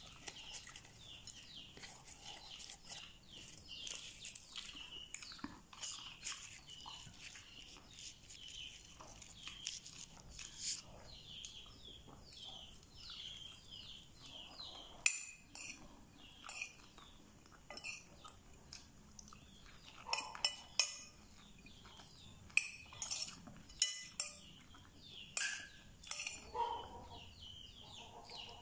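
Eating sounds: close chewing of food, then several sharp clinks of a metal spoon against a ceramic plate in the second half.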